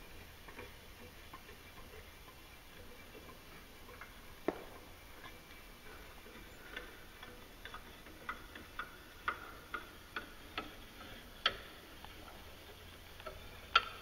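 Faint, irregular metallic clicks, roughly half a second to a second apart, from a wrench backing off the nut on the threaded rod of a clutch compression tool to release the secondary clutch spring, with one louder click near the end.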